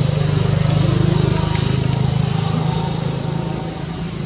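A motor engine running close by, a low steady drone that is loudest in the first couple of seconds and then slowly fades.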